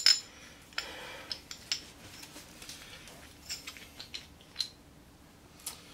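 Small metal tool parts handled by gloved hands: a sharp metallic clink right at the start, then a few light ticks and taps scattered through an otherwise quiet stretch.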